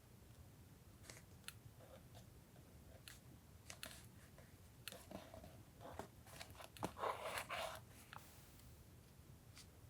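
Paper and stationery being handled while collaging a journal: scattered light taps and soft paper rustles, with a louder crinkling of paper about seven seconds in.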